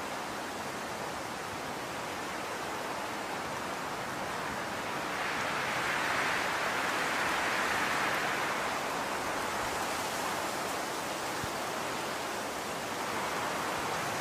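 Steady rushing background hiss, growing a little louder for a few seconds in the middle.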